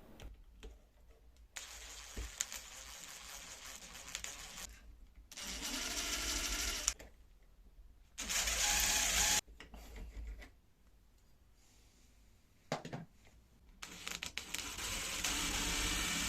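Power drill run in several short bursts, pre-drilling pilot holes for the door handle and latch screws, with quiet pauses in between.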